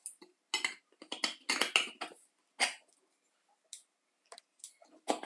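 A small DC motor being handled and seated into a circular saw's cast aluminium motor housing: a string of short, irregular clicks, scrapes and rattles of metal on metal.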